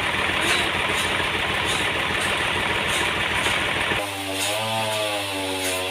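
Sawmill machinery running while sawing a trembesi log: a dense mechanical roar with fast low pulsing, which changes abruptly about four seconds in to a steadier pitched hum that dips in pitch and recovers.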